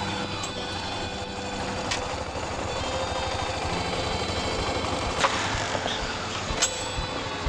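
Small motorcycle engine running at low speed, with a few sharp clicks over it.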